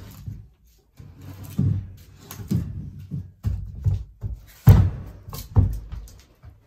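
A series of irregular knocks and clunks, like objects being handled and set down. The loudest two come about four and a half and five and a half seconds in.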